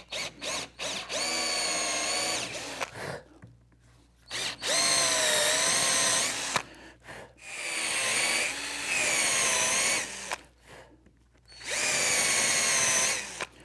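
Cordless drill pre-drilling screw holes through the sled base into a hard maple bridge: four short runs at a steady whining pitch, stopping and starting between holes.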